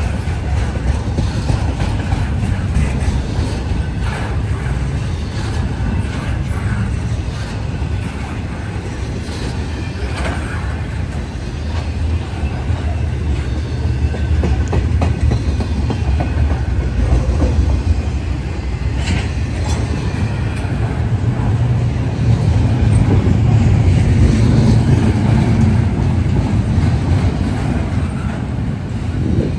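Intermodal freight train rolling past: a steady heavy rumble of steel wheels on the rails with scattered clicks and clanks, swelling louder in the last third.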